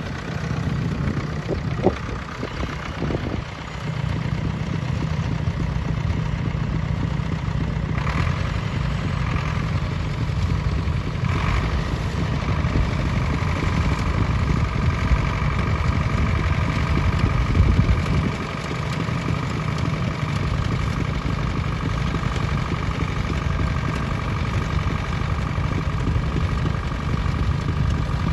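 Nuffield 10/60 tractor's diesel engine running steadily while pulling a plough, swelling louder for a moment past the middle.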